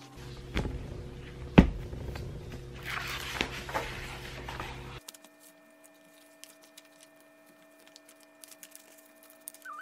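Pages of a thick textbook being turned by hand, paper rustling, with one sharp knock about a second and a half in as the book is handled. About halfway through it drops abruptly to a faint steady hum with small ticks.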